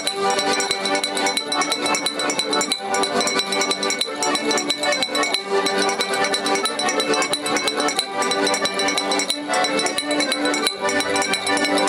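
Several accordions, among them a small white diatonic button accordion, playing a tune together: steady reed chords over a sharp, even beat of clicks.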